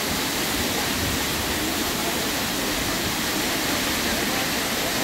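Multnomah Falls, a tall two-tier waterfall, rushing steadily: a constant, unbroken hiss of falling water.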